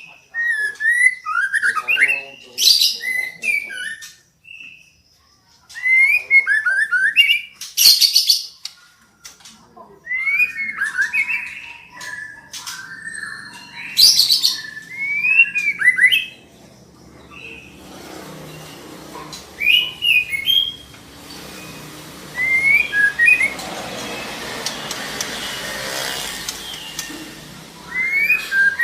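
Female white-rumped shama calling in repeated bouts of short whistled chirps and harsh rasping notes, a call used to lure a male into singing. A steady hiss underlies the calls in the later part.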